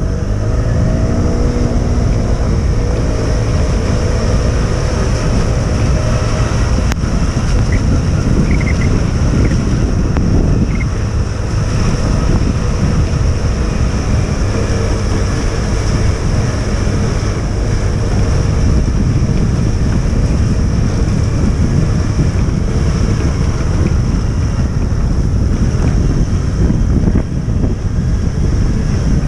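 Wind buffeting the microphone while moving quickly along the streets: a loud, steady, low rumble.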